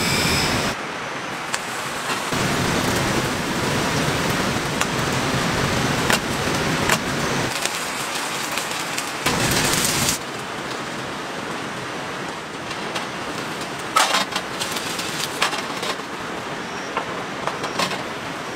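Vegetables sizzling in an oiled frying pan over a gas camp-stove burner, a steady hiss that swells for a moment about nine seconds in, with a few light clinks of the pan and utensils.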